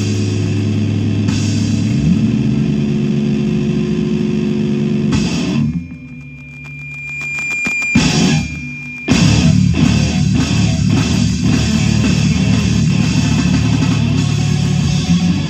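Loud heavy rock music from a band with distorted electric guitar, bass and drums. About six seconds in the band drops out, leaving a single high steady tone ringing, and about nine seconds in the full band crashes back in.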